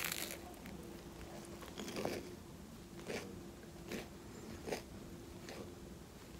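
Churro being bitten and chewed: five or six short, crisp crunches roughly a second apart, over a faint steady hum.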